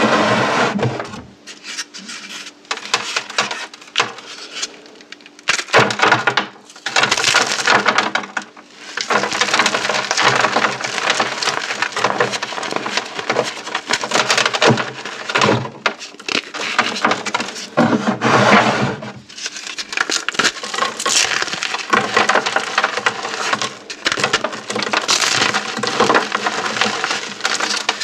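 Dried orbeez hydrogel balls and chalk being crushed: dense crunching and crackling in spells of a few seconds, with brief breaks between them.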